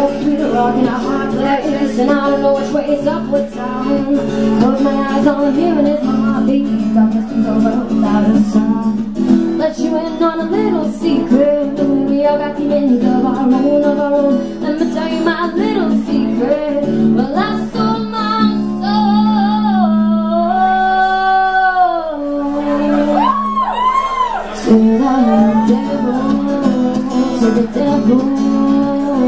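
A woman singing a slow song to her own acoustic guitar accompaniment, holding one long wavering note about two-thirds of the way through.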